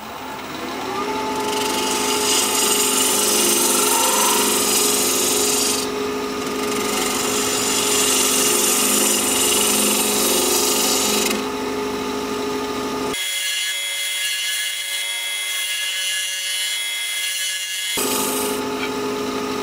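Wood lathe spinning a bowl at about 1400 RPM while a half-inch bowl gouge cuts its bottom, throwing shavings, in two long cuts of several seconds each over the steady motor hum. The bottom is being shaped concave. For a few seconds near the end the sound thins to a high whine, then the hum returns.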